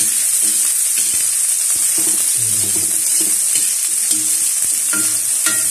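Chopped onion and garlic sizzling in hot oil in a steel wok, stirred and scraped with a spatula. There is a steady high hiss, and the spatula knocks against the wok a couple of times near the end.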